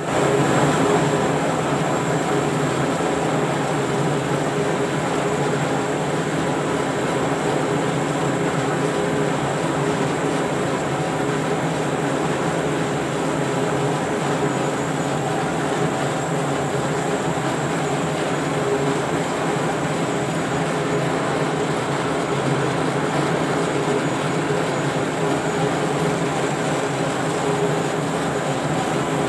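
Large industrial electric motor and the machine it drives running steadily, a loud constant hum with several steady tones.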